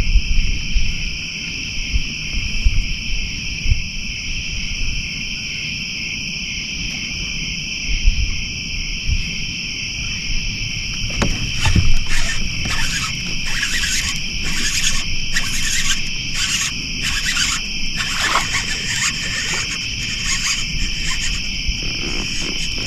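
Night insect chorus: crickets keep up a steady high trill throughout. About halfway through, a louder rasping insect call joins in, repeated in quick pulses. Underneath is a low rumble, with a couple of knocks near the middle.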